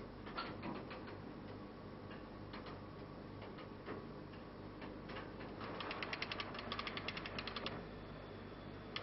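Metal ratchet clicking. A few scattered clicks come first, then a fast run at about ten clicks a second from about halfway through, and another run starts at the end, over a low steady hum.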